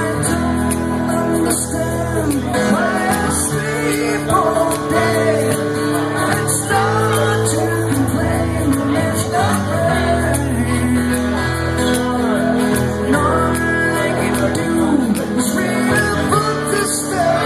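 Music: a song sung over guitar.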